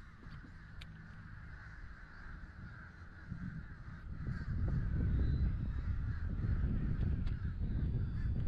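Wind buffeting the microphone, stronger from about halfway through, over a steady background of bird calls.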